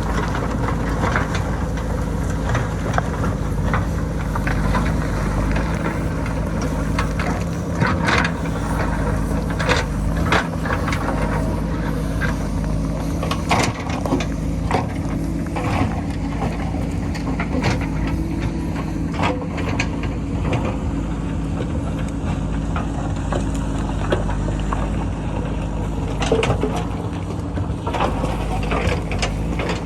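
JCB backhoe loader's diesel engine running steadily under load while its bucket digs into rocky ground, with frequent scattered knocks and clatters of rock and falling stones.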